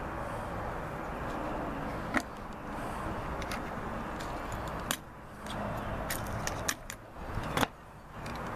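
Small clicks and knocks of hands handling a small black wooden box of loading tools, ending with a sharp knock as its lid is shut near the end, over steady background noise.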